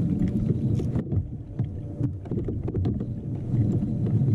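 Water lapping and gurgling against a kayak hull, with a steady low rumble of wind on the microphone and scattered small knocks and clicks.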